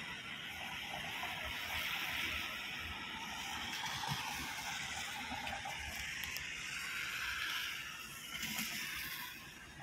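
Steady hiss of rain and tyres on a wet road.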